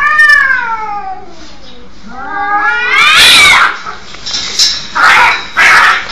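Cats caterwauling in a fight: a long yowl that rises and falls at the start, then a louder rising yowl about three seconds in. Two short harsh bursts come near the end.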